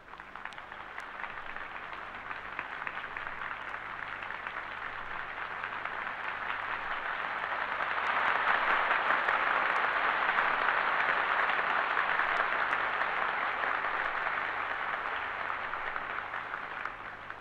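Large crowd applauding after a proclamation, swelling to its loudest around the middle and then dying away. It is heard on an old archival recording with the top end cut off and a faint low hum underneath.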